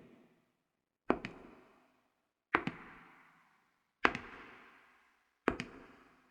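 High-heeled shoes walking slowly on a hard wooden floor: four evenly spaced steps about a second and a half apart, each a sharp double click followed by an echo that fades over about a second.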